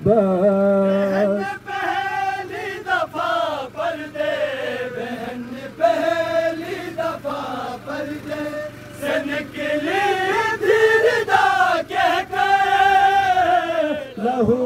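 Voices of a mourning group chanting an Urdu noha, a Muharram lament, in long, wavering held notes.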